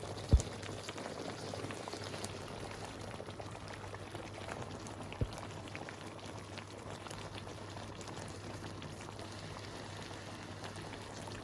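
A pot of chicken afritada stew simmering, with a steady bubbling and fine crackle. Two short soft thumps, about half a second in and about five seconds in.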